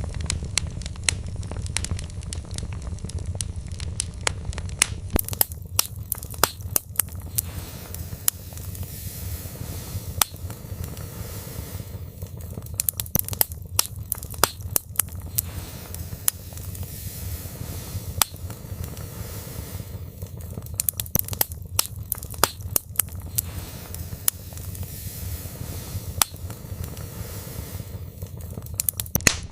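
Wood fire burning in a fireplace: a steady low rumble of flames under irregular sharp crackles and pops from the burning logs, which bunch into quick clusters every few seconds.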